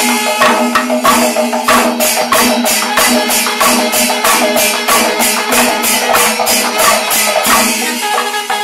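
Kerala Panchavadyam temple ensemble: thimila and maddalam drums played with the hands, with cymbals clashing about four times a second over a steady low tone.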